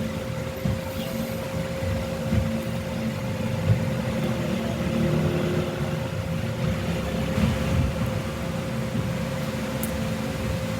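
Steady machine hum: a low rumble with a constant mid-pitched tone running over it, unchanging throughout.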